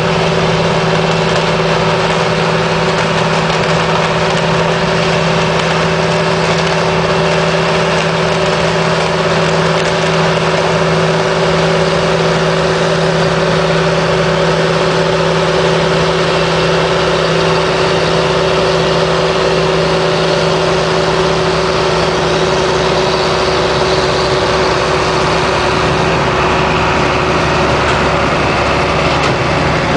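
Beet harvesting machinery running at a steady pace: a loud, even engine drone with several constant humming tones under a steady mechanical noise.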